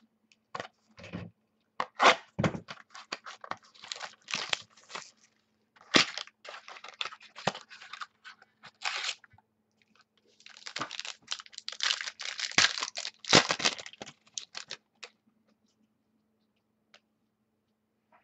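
Trading card pack packaging being torn open and crinkled by hand, a run of crackling, crunching and tearing sounds, with cards being shuffled.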